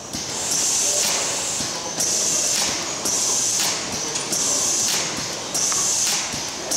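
Compressed air hissing in repeated short bursts, five or six of them a little over a second apart, from the pneumatic actuators of an automated pot-handling conveyor, over the steady running of the conveyor machinery.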